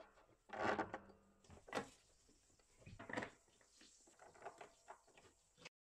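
Faint, scattered knocks and rustles of hands and hardware working inside a sofa bed's storage compartment, a few separate bursts, with the sound cutting off suddenly near the end.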